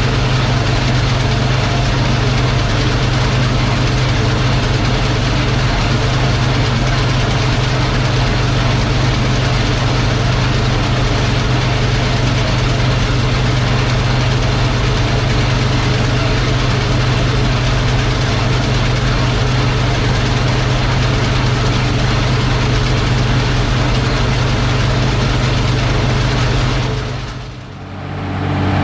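Combine harvester running steadily while harvesting wheat: the engine and threshing machinery make a loud, even drone with a strong low hum. About a second before the end it drops away briefly and comes back as a different, steadier engine note.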